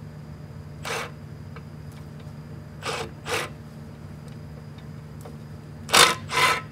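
Socket ratchet loosening a transmission torque converter bolt, heard as five short zipping ratchet strokes: one about a second in, a pair around three seconds, and a louder pair near the end.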